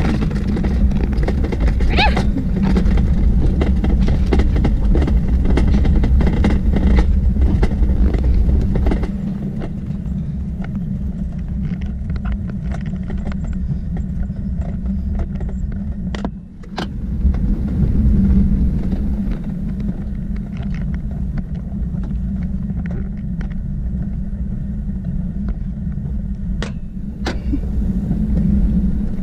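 Toboggan sled running fast down a metal trough track, a steady low rumble that eases after the first third. It drops out briefly just past halfway, with a few sharp clicks.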